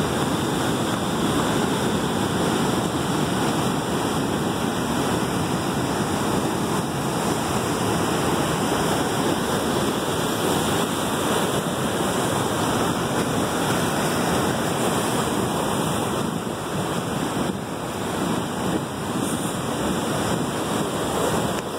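Ocean surf breaking on and washing over the rocks of a stone breakwater: a steady rush of whitewater.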